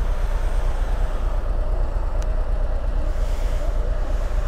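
Harley-Davidson Ultra Limited motorcycle's V-twin engine running steadily while riding, heard as a continuous low rumble with road noise.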